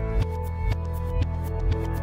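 Background music with a steady beat, about two beats a second, over held chords.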